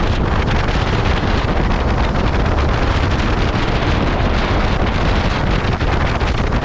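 Steady wind rush buffeting the microphone of a KTM 390 Adventure motorcycle riding at speed, with the bike's running sound blended into it.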